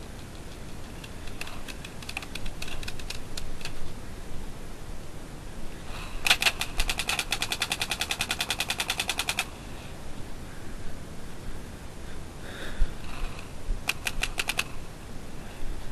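Paintball markers firing: scattered single pops in the first few seconds, then a long rapid string of shots at about ten a second for some three seconds near the middle, and a shorter quick burst near the end.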